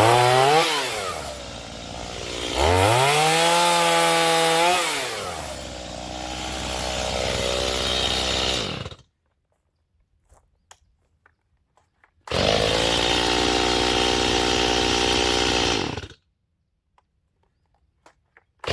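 Stihl MS210 two-stroke chainsaw revving up and dropping back, with one long high-speed run near the start, as in limbing cuts. It stops abruptly about halfway through, then runs steadily again for a few seconds.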